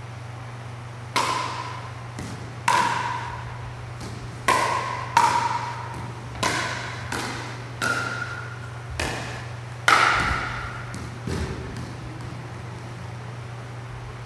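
Pickleball rally: about a dozen sharp pops of paddles striking the plastic ball, spaced irregularly less than a second to a second and a half apart, with fainter ball bounces in between. The hits stop a couple of seconds before the end, over a steady low hum.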